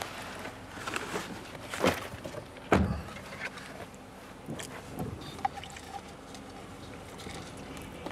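Car driving over a rough dirt road, heard from inside the cabin: a steady rumble of road noise with scattered knocks and rattles as it bumps along, the strongest about two and three seconds in.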